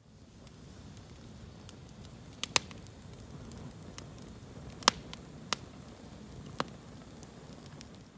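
Wood campfire of split logs burning with a steady low hiss, popping sharply a handful of times, loudest about two and a half and five seconds in.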